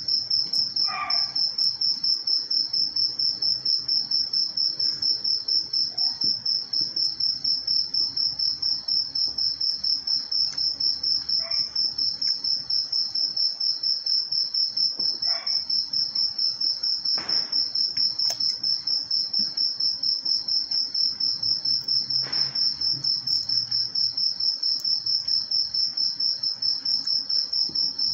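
An insect chirping steadily, a high-pitched trill pulsing about five times a second without a break. A few faint short knocks sound now and then.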